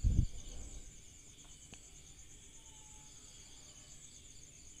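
Faint, steady high-pitched chirring of insects such as crickets, with a brief low thump right at the start.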